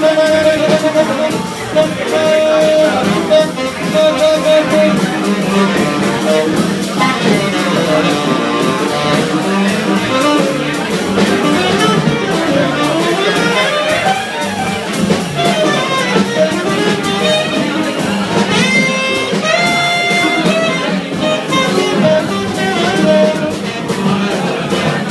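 Live small-group jazz: saxophone, electric guitar and upright double bass playing together.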